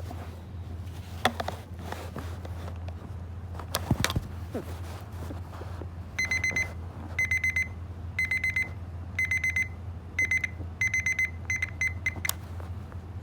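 Electronic alarm clock beeping: groups of rapid high-pitched beeps, about one group a second, starting about six seconds in and stopping shortly after twelve seconds. A few clicks come before it over a steady low hum.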